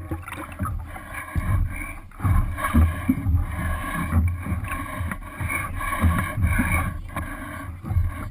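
Water rushing and slapping against the bow of a Sunfish sailboat under sail, coming in irregular surges about once a second.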